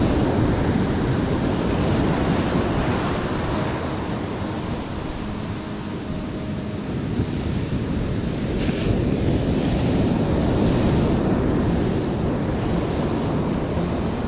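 Sea surf washing in continuously, easing off a few seconds in and then building again, with wind buffeting the microphone.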